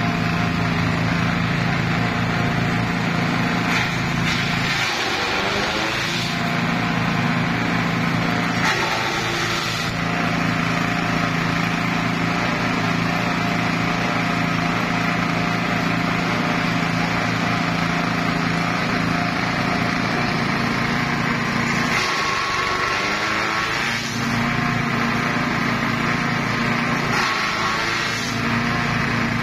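Small stationary engine driving a grass chaff cutter, running steadily while napier grass is chopped. Several times the engine note sags briefly and recovers as a bundle of grass is fed into the blades and loads it.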